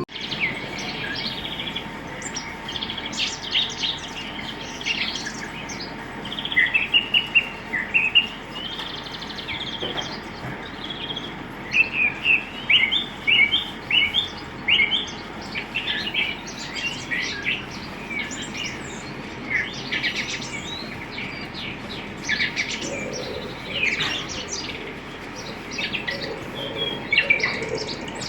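Small birds chirping, many quick short calls in a busy, overlapping chorus over a steady background hiss; toward the end a fainter, lower repeated call joins in.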